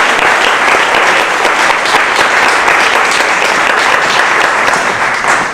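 An audience applauding steadily, a dense patter of many hands clapping, welcoming a speaker to the podium; it stops as she starts talking.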